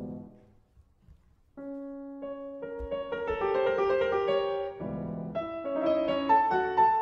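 Grand piano playing a classical piece: a chord dies away, about a second of near quiet follows, then a held note opens a phrase that thickens into dense, layered chords, with a deep low chord about five seconds in.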